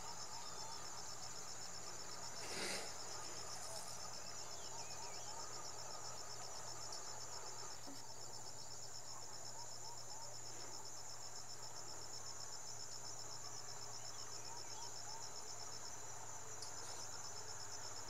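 Steady chorus of crickets, a high, rapidly pulsing trill, with a brief soft rustle about two and a half seconds in.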